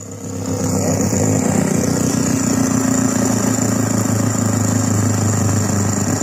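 Fidget spinner spinning fast on its bearing: a steady, noisy whirring buzz with a high whine on top, swelling in the first second and then holding level.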